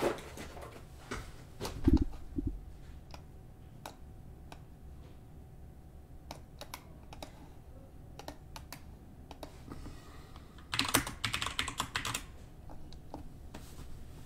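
Light clicks and taps from small objects being handled on a desk, with a dull thump about two seconds in and a quick run of clicks about eleven seconds in.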